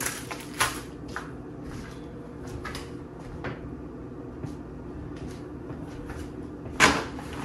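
Scattered knocks and rustles of things being handled in a kitchen, with a louder knock or rustle near the end, over a steady faint hum.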